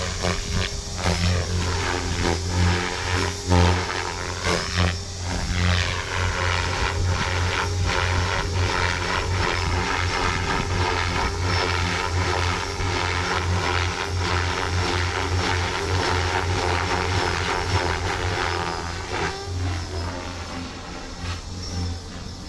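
Radio-controlled helicopter in flight, its rotor and motor droning steadily, the pitch sweeping up and down as it manoeuvres. The sound falls away over the last few seconds.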